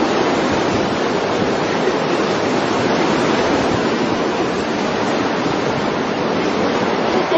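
Strong wind blowing over the microphone: a steady, loud rushing noise with no break.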